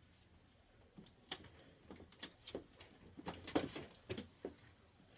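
Faint, irregular small taps and clicks in a small room, starting about a second in and coming several times a second at their busiest.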